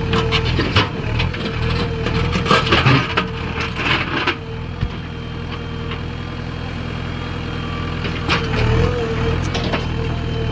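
Diesel engine of a JCB 3DX backhoe loader running steadily, with a scatter of clanks and knocks from the bucket and material through the first few seconds and again near the end.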